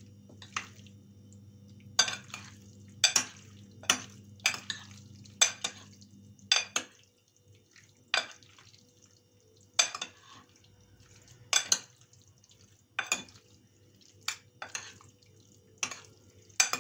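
Two metal spoons clinking against a glass baking dish while tossing cubed raw chicken in an oily spice marinade: irregular sharp clinks, often in quick pairs, with wet stirring between them.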